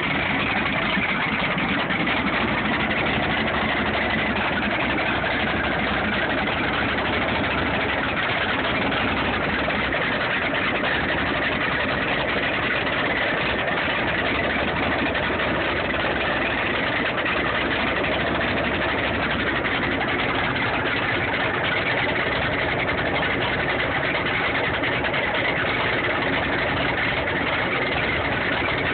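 Freshly rebuilt 454 big-block Chevy V8 jet boat engine with a performance cam, running at a steady speed on a test stand during its first run after the rebuild.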